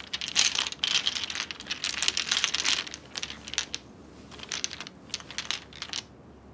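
Small glass nail polish bottles clinking and rattling as a hand rummages through a bowl of them. The clatter comes in quick clusters with short pauses.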